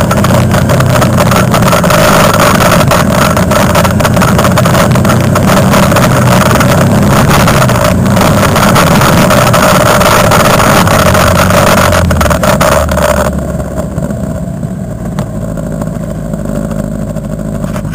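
Quad bike (ATV) engine running under way, heard from on board, with frequent clatters over the rough trail. About three-quarters of the way through it eases off and drops to a quieter, lower running as the quad slows behind the others.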